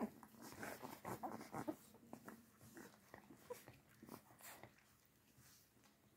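Nursing puppies making short, faint squeaks and whimpers, most of them in the first two seconds.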